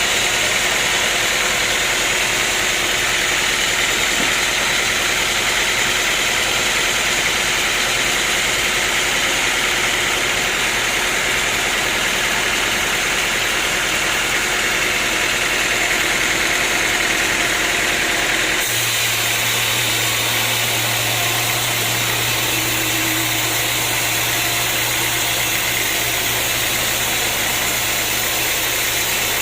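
Sawmill machinery running steadily: a motor's continuous drone with a strong hiss. About two-thirds of the way through it switches abruptly to a different steady machine noise with a low hum.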